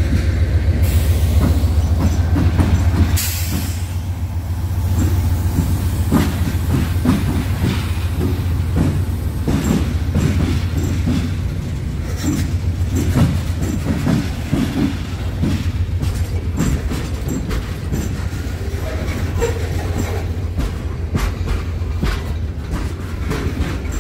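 Freight train rolling past: a steady low rumble of the cars with wheels clicking and knocking over the rail joints.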